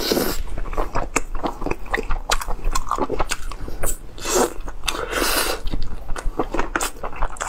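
Close-miked eating: a person biting and tearing tender stewed lamb rib meat off the bone, with wet chewing and a dense run of mouth clicks and smacks.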